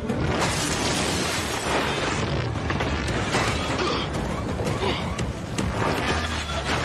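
Film sound effects for a fight between giant robots: heavy metal mechanisms clanking and grinding, with repeated hard metallic hits and booms in a dense, loud mix.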